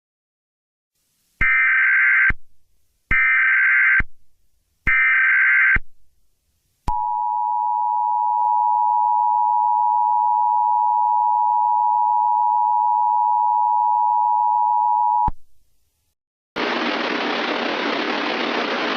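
Emergency Alert System tones: three short bursts of warbling SAME header data, then the two-tone attention signal held steadily for about eight seconds, announcing a severe thunderstorm warning. Near the end a steady hiss starts.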